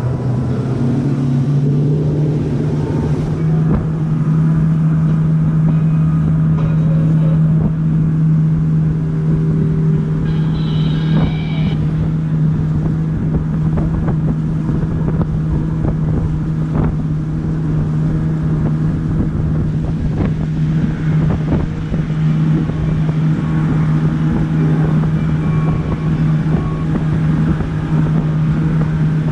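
A boat's motor running steadily at cruising speed, with wind buffeting the microphone and occasional sharp knocks over the drone.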